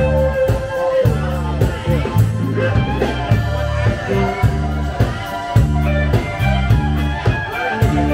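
Live band playing a blues-rock tune: electric guitar lead over held bass notes and a steady drum beat.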